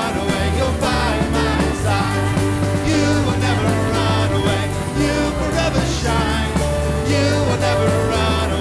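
Contemporary Christian worship music playing at a steady level, a full band mix with a sustained bass line under a pitched melody.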